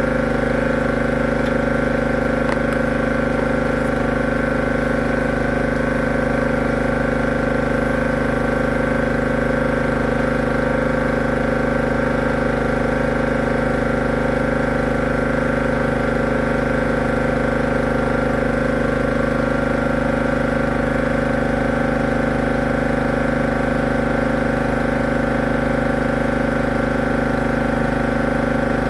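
High-pressure drain jetter's engine and pump running steadily at a constant speed.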